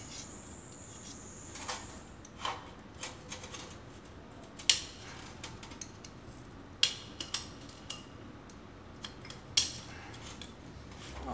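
Scattered sharp metallic clicks and clinks, the loudest about five seconds in, from hands working a Suzuki TL1000R front fork apart at the top of its outer tube, where the spring-like retaining clip holds the oil seal.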